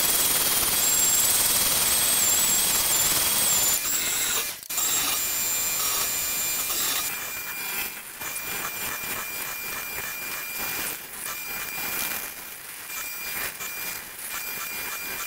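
Power tool working wood: a loud, steady cutting noise with a high, wavering whine, broken off briefly near the middle, then a quieter, scratchy rasping from about halfway through.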